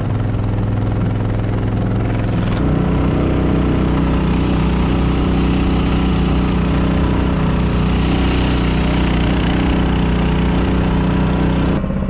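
A PPF mud motor running steadily, pushing a small layout boat across the water. Its tone changes abruptly about two and a half seconds in, then holds steady.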